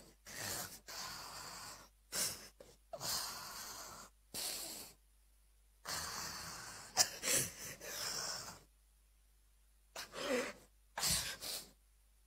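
A woman weeping into a handheld microphone: a run of uneven, gasping breaths, with a couple of short voiced sobs near the end.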